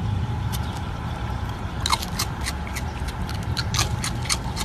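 Raccoon pawing at and picking up fruit-ring cereal from a hand: a run of sharp, irregular clicks and small crackles of the cereal pieces being handled, over a steady low rumble.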